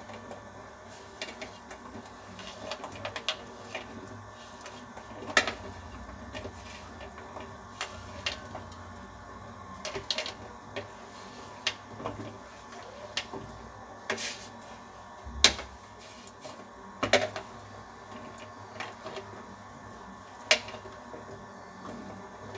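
Boiled potato cubes being patted dry with a cloth on a plastic plate: soft rubbing with irregular sharp clicks and knocks from the handling, the loudest about halfway through and near the end.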